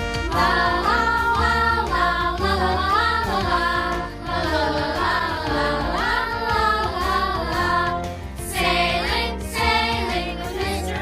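A children's song: sung vocals over a band with a steady bass and beat.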